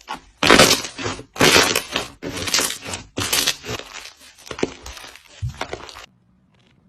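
Crunchy slime being squeezed and pressed, giving a run of loud crackling crunches about one or two a second, which stop abruptly about six seconds in.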